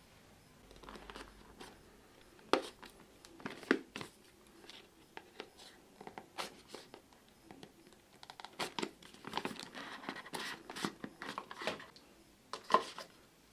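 A cardboard smartphone retail box being handled and opened: irregular scrapes, small taps and short tearing sounds as the seal sticker on the lid is slit and the box is turned in the hands.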